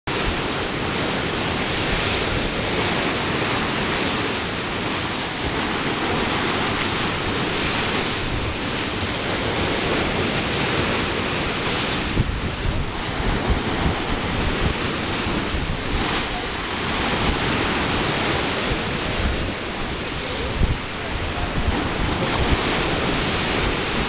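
Choppy sea waves washing in close by, under strong wind that buffets the microphone in gusts, most noticeably about halfway through and again near the end.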